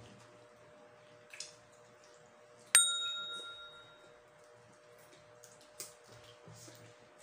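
A metal spoon strikes once about three seconds in, giving a bright ding that rings out and fades over about a second and a half. Soft eating smacks and a faint steady hum run under it.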